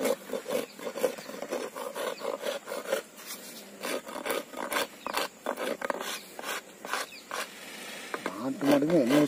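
Steel hand file rasping against a cow's horn in repeated back-and-forth strokes, shaving the horn down to shape it.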